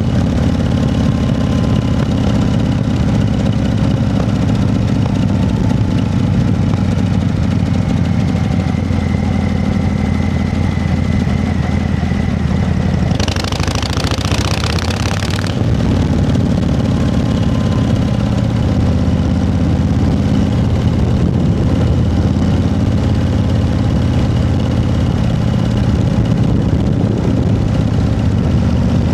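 An engine idling steadily, with a burst of hiss lasting about two seconds roughly halfway through.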